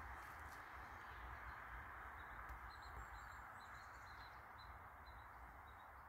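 Faint, steady outdoor hiss and low rumble, with a bird chirping: a run of short high chirps, two or three a second, starting about two seconds in.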